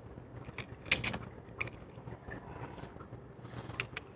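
Faint clicks and taps of small metal lock parts being handled: the gutted core of a Mul-T-Lock Interactive dimple lock. A few sharp clicks come about a second in, with more near the end.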